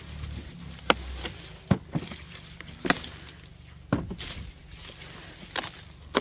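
Bell peppers being picked off the plants: a string of sharp snaps and clicks, roughly one a second.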